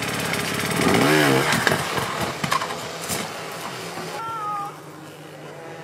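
Enduro dirt bike engine revving hard in uneven bursts while the bike is forced up a steep rock face, with knocks of the bike on rock; the engine drops off sharply near the end.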